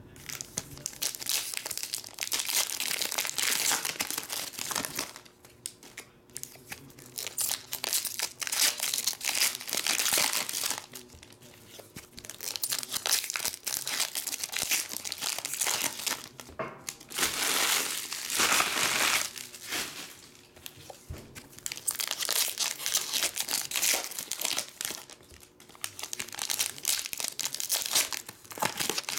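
Foil trading-card pack wrappers being crinkled and torn open by hand, in several long bouts of crackling with short pauses between them.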